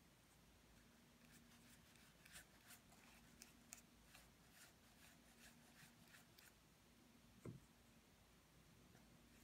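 Very faint scratchy strokes of a small paintbrush spreading Mod Podge over a paper Bible page, with one soft low bump near the end.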